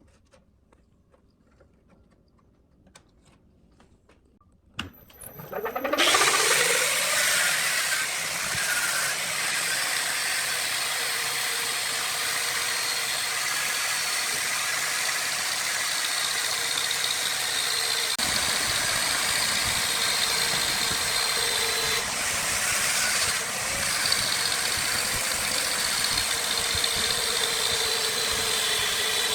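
Electric wood lathe switched on about five seconds in, its motor winding up to speed with a quickly rising whine, then running steadily with a dense hiss.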